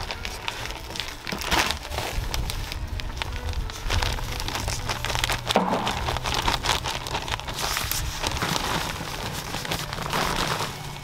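Peat moss pouring from a plastic bag into a bin, a continuous dry rustling patter as it lands, with the bag's plastic crinkling.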